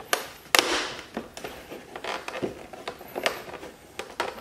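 Plastic side-mirror cap being pressed onto a pickup's mirror housing: two sharp clicks in the first second as its clips snap into place, followed by lighter taps and rubbing of hands on the plastic, with a few more clicks near the end.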